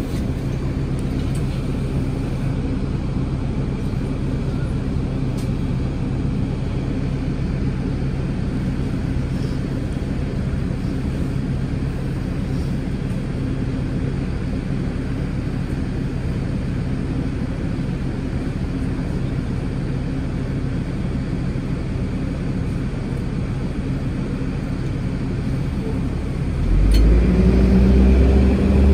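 Nova Bus LFS diesel engine idling steadily, heard from inside the bus. About 27 seconds in it revs up louder as the bus pulls away.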